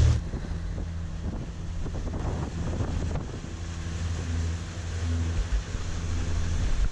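Sailboat under way: a steady low engine drone, with water rushing along the hull and wind buffeting the microphone.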